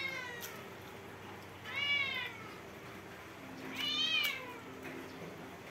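A cat meowing: three drawn-out meows that rise and fall in pitch, about two seconds apart.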